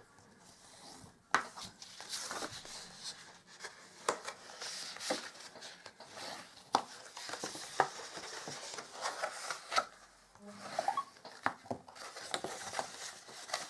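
Scored cardstock being folded and creased by hand along its score lines: irregular sharp paper crackles and clicks with rustling as the sheet is handled on the mat.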